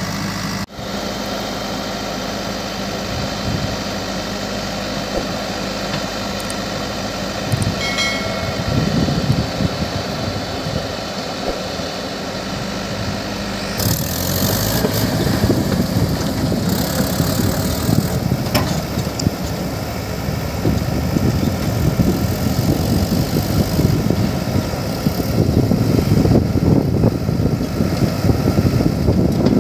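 Diesel engines of a JCB 3DX backhoe loader and a Mahindra 575 DI tractor running steadily as the backhoe loads soil into the tractor's trolley. About halfway through the sound turns louder and rougher as the loaded tractor pulls away.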